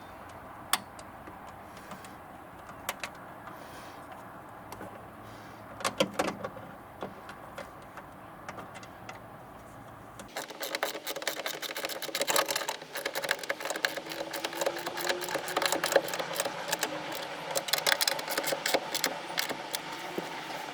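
Hand tools working on a car door's fittings: a few single metallic clicks, then, about halfway through, a dense run of rapid metallic clicking and rattling.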